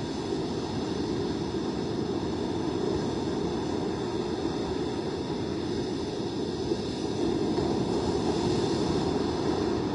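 Steady rushing of storm wind buffeting the microphone, heaviest in the low range, swelling slightly about seven seconds in.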